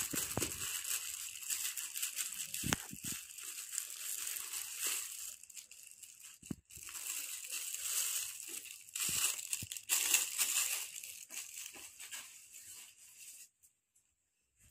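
Crinkling and rustling of shiny gift wrap and chocolate wrappers being handled by hand, with a few soft knocks; it stops near the end.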